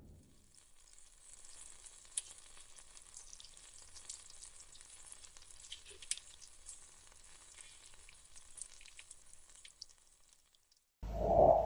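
Faint sizzling and crackling with scattered small pops as a small flower-shaped plastic piece is heated until it melts and smokes. Near the end a much louder rushing sound cuts in.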